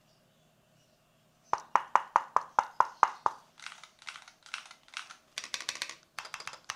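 Keys pressed on an Akko x Monsgeek FUN60 Ultra magnetic-switch keyboard. After about a second and a half of quiet comes a run of about eight evenly spaced sharp key presses, then softer, longer strokes, then quick rapid typing near the end.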